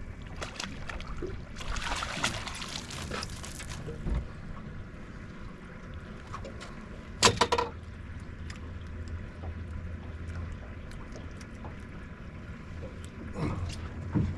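Water lapping and trickling around a fishing boat, over a steady low hum, with a sharp knock about seven seconds in.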